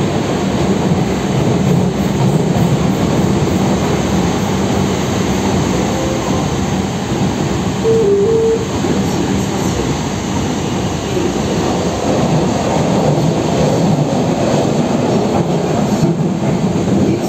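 Mexico City Metro Line 12 train heard from inside the passenger car while it runs: a steady, loud rumble of wheels on rails and running gear. A short tone sounds about halfway through.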